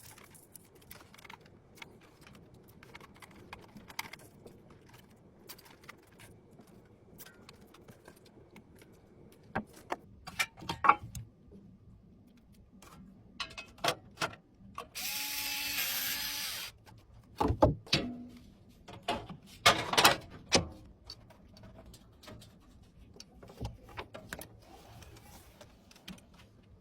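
Clicks and knocks of computer parts being handled and fitted during a PC build, with a small power tool running for about two seconds near the middle.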